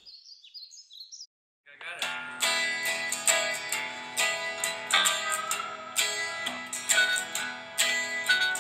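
Faint high chirping, a moment of silence, then guitar music starts about two seconds in: strummed and plucked guitar over a held low note.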